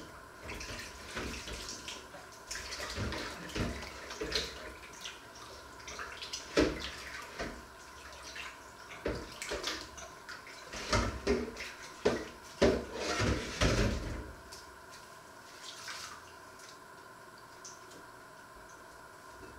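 Dishes being washed by hand in a stainless steel sink: irregular splashing of water and clinks of crockery and utensils, busiest a little past halfway and dying down near the end.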